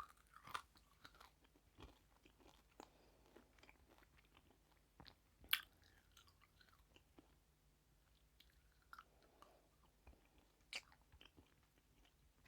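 Close-miked eating: quiet chewing with scattered sharp crunches and clicks, the loudest about halfway through and another near the end.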